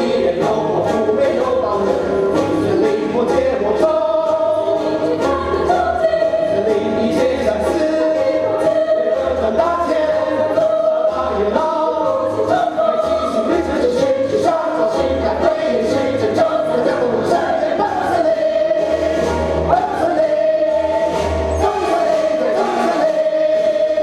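Stage musical cast singing together in Chinese as a chorus over instrumental accompaniment, with a low pulsing bass and long held notes.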